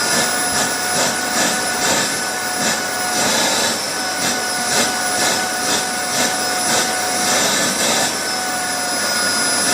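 Vacuum cleaner running with a steady high whine, its rushing hiss swelling and easing about twice a second as the nozzle is worked back and forth.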